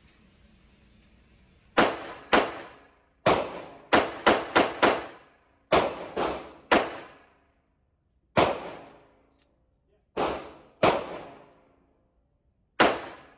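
Ruby .32 ACP (7.65 mm) semi-automatic pistol fired about fourteen times in an uneven string, including a fast run of four shots in about a second, each shot echoing briefly off the walls of an indoor range.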